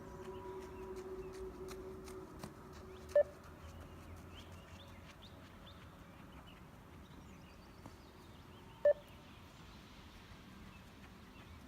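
Two short electronic beeps of the 20 m multistage fitness (beep) test, about six seconds apart, each signalling the end of one 20 m shuttle at level 9. Under them is a faint hum with scattered light clicks.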